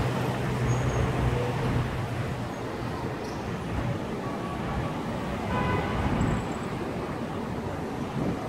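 Steady road-traffic noise, a wash of passing cars with a low engine hum in the first couple of seconds.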